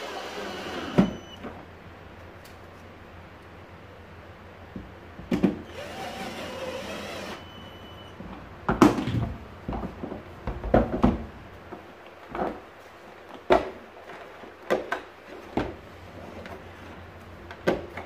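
Plastic vacuum cleaner housing being handled and fitted together during reassembly: a series of separate knocks and clicks. Near the start and again about five seconds in, a small motor whirs briefly, the second time for about two seconds.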